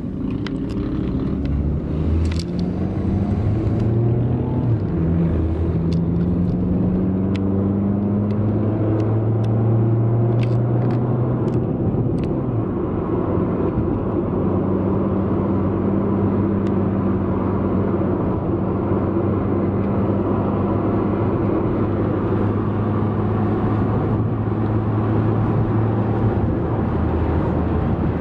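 A bus engine running, heard from inside the moving bus: its low hum rises and shifts in pitch several times over the first dozen seconds as it pulls away and gathers speed, then settles into a steady drone. A few light clicks or rattles come early on.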